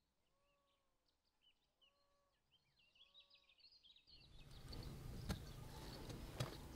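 Faint birds chirping, with a soft call repeating about once a second. About four seconds in, a louder, steady crackling noise with sharp clicks cuts in.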